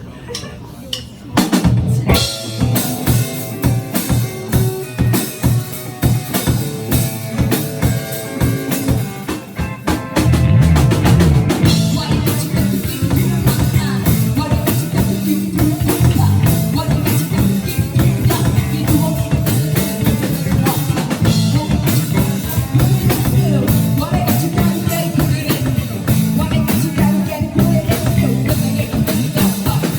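Live band starting a song with the drum kit prominent. A few sharp strokes come first, then the band comes in, and about ten seconds in the full band takes over with a heavier low end.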